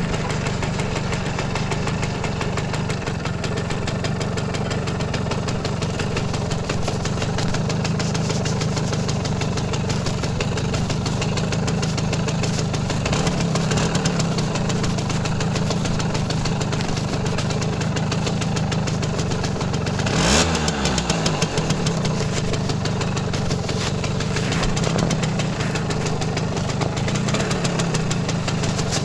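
Simson S51 moped's 50cc two-stroke single-cylinder engine running steadily at low revs. About twenty seconds in there is a brief sharp sound, and a pitch falls away after it.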